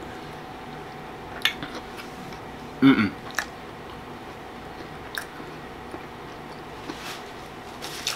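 A person chewing a mouthful of carne asada taco with the mouth closed, with soft wet clicks and smacks scattered through. There is one short voiced sound from the throat about three seconds in.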